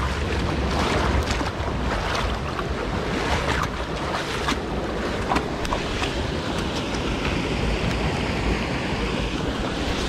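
Steady rush of river water with wind buffeting the microphone, over irregular scrapes and clicks of footsteps and gear on rock.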